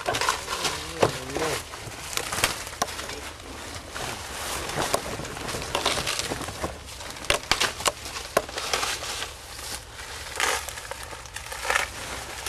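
Dry maize husks and leaves crackling and crinkling as an ear of corn is husked by hand among dry stalks, with many sharp, irregular snaps.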